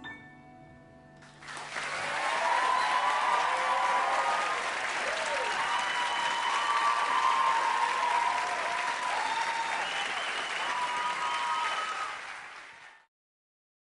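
A last piano chord dies away, then a studio audience breaks into applause and cheering, with whooping voices over the clapping. The applause fades out near the end.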